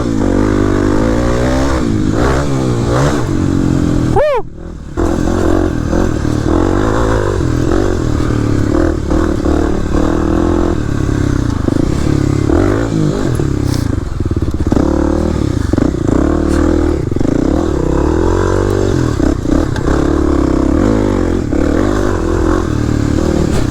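Dual-sport dirt bike engine revving up and down under changing throttle while being ridden. The engine sound drops away briefly about four seconds in, then picks up again.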